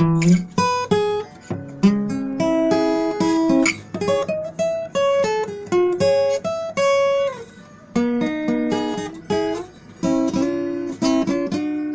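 Instrumental music with no singing: a melody of separately struck notes over lower chord notes, in a steady flow of sharp note onsets.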